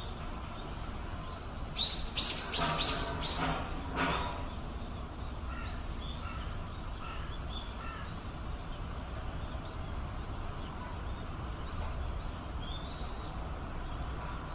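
A bird calling in a quick run of sharp, falling notes about two seconds in, then faint chirps now and then, over a steady low rumble.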